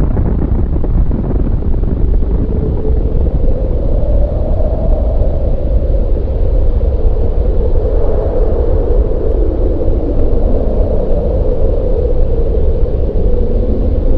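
Loud, continuous rumble with a wavering mid-pitched drone on top.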